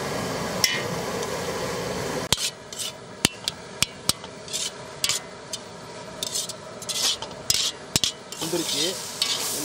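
Perforated steel ladle scraping and stirring minced mutton in a large iron kadai, a sharp scrape about every half second with sizzling between. A steady rushing noise fills the first two seconds and cuts off suddenly.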